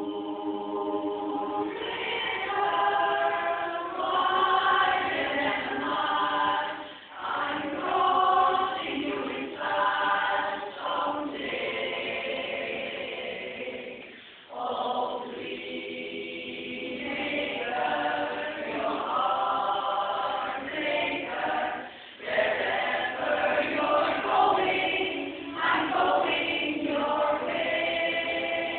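Women's barbershop chorus singing a cappella in close harmony, in phrases with short breaks between them.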